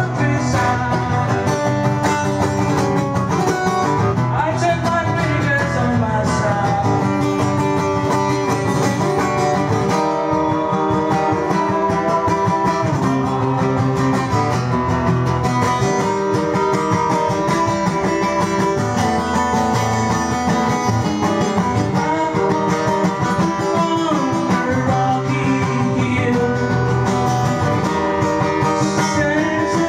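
Acoustic guitar played live in a song, a steady run of chords and notes with no break.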